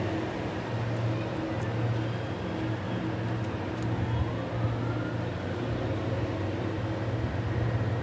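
Steady low hum with a few held low tones over a constant hiss of background noise, and a faint rising whine about four seconds in.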